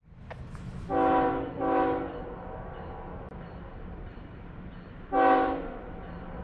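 Air horn of an approaching Canadian Pacific ES44AC locomotive sounding three short blasts: two back to back about a second in, and a third about five seconds in. A steady low rumble of the distant train runs underneath.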